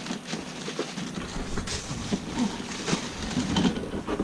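Parts of a boxed watermaker kit being handled: irregular rustling and light knocks, with a few brief low murmurs.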